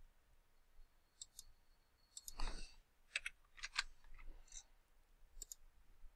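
Faint, scattered clicks of a computer mouse and keyboard. There is one louder, longer noise about two and a half seconds in.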